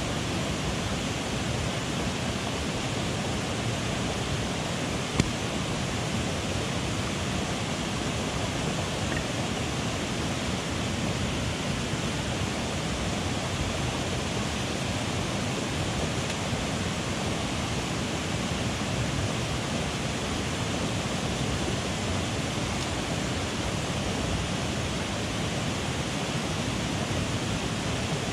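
Mountain headwater stream rushing steadily, an even wash of water noise. A single sharp click about five seconds in.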